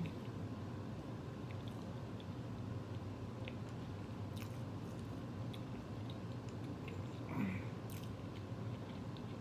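A person chewing a bite of chicken sandwich close to the microphone, with small wet mouth clicks, over a steady low hum. A brief vocal hum comes about seven seconds in.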